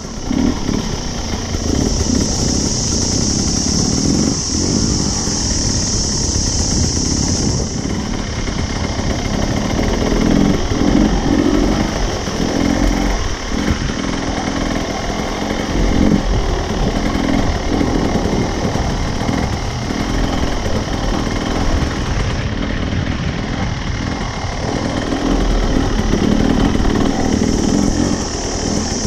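Dirt bike engine running and revving up and down as the bike is ridden slowly over rough ground. A steady high hiss sits over it, louder in the first few seconds and again near the end.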